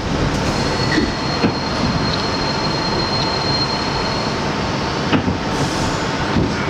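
R62A subway car running at speed through a station, heard from inside the car: a steady rumble of wheels on rail, a thin high wheel squeal for about four seconds, and a few sharp knocks.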